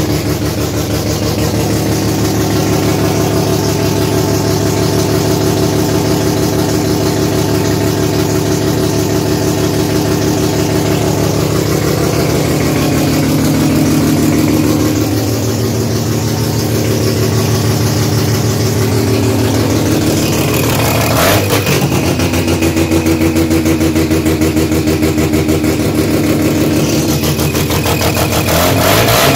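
Mazda RX-3 rotary engine running at a steady idle, its speed rising and falling slightly, with the exhaust leak the car has. A single sharp click about 21 seconds in.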